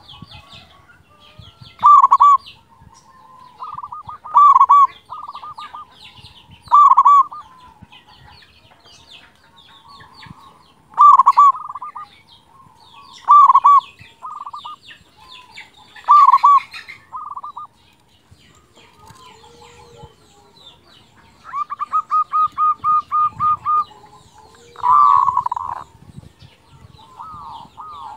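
Zebra dove (perkutut) cooing: loud, ringing coos repeated every two to three seconds, a quick even run of about ten notes a little before the end, then one loud coo and a string of softer ones.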